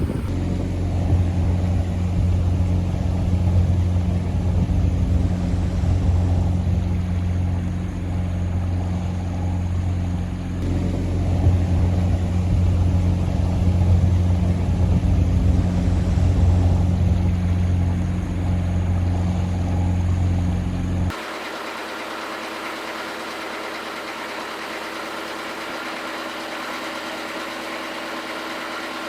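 Inboard engine of a wooden motor cruiser running steadily with a deep, even hum. About two-thirds of the way through, the sound switches abruptly to a quieter, thinner engine drone with less low rumble.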